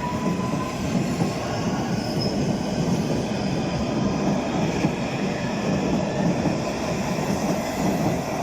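London Underground Metropolitan line S8 Stock train pulling out of the station: a steady rumble of wheels on rail, with a faint rising motor whine at the start.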